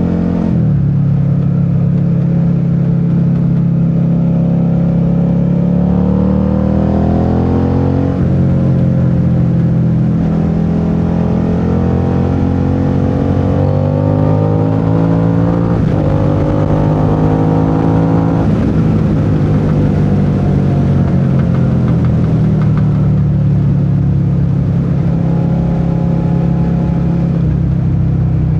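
Suzuki SV650's 645 cc V-twin engine under way, pulling up through the revs several times with a sudden drop in pitch at each upshift, then easing off about two-thirds through and settling to a steady cruise.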